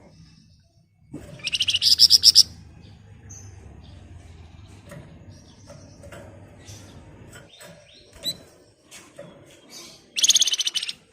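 A flamboyan songbird giving two loud bursts of very fast, rattling repeated notes (its 'ngebren' trill), each lasting about a second, one near the start and one near the end, with softer scattered chirps in between.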